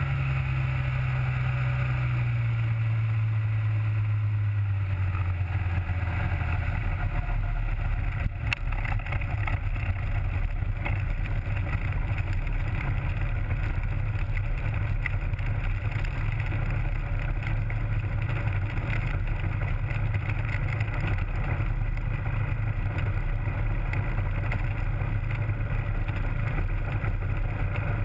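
Rotax 503 two-stroke twin engine of a Hy-Tek Hurricane 103 ultralight driving its three-blade pusher propeller. The pitch drops over the first several seconds as the throttle comes back, then the engine runs steadily at low revs while the aircraft taxis on the ground.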